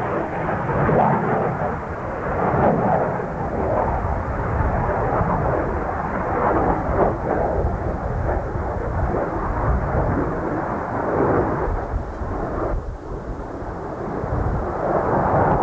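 Saab JA 37 Viggen's single afterburning Volvo RM8B turbofan heard in a low display pass, a loud rushing jet noise that surges and fades as the aircraft manoeuvres, dropping briefly about thirteen seconds in and swelling again near the end.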